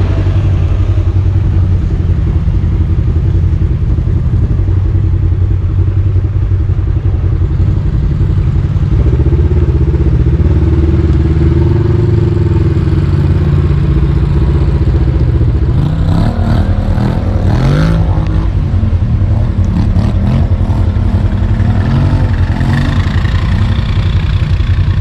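Off-road vehicle engine running steadily at low speed. Past the middle, the revs rise and fall a few times, with a brief rattle.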